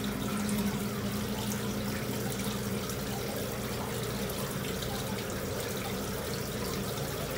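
Running water trickling and splashing, with scattered small drips and clicks over a steady low hum.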